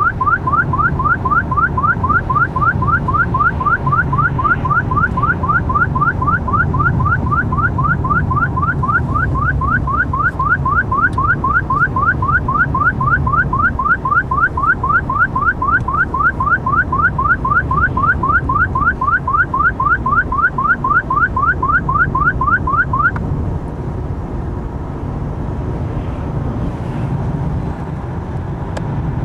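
Stinger DSI radar detector sounding its alert, a rapid run of short rising beeps about four a second, warning of K-band radar. The alert cuts off suddenly some six seconds before the end. Steady road and engine noise inside the car's cabin runs underneath.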